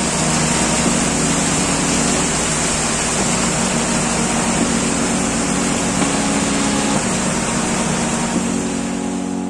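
Motorboat engine running steadily under way, a low hum under a constant rushing noise of water and air.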